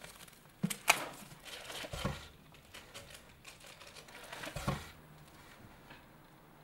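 Plastic packaging of a cup of instant ramen crinkling and tearing as it is unwrapped by hand, in short irregular crackles with a sharp one about a second in.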